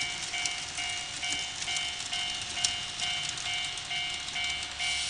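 Electronic warning bell of a Tomix N-gauge automatic level crossing, ringing a repeating chime about twice a second: the crossing is active. Irregular sharp clicks sound behind it, and a steady hiss starts near the end.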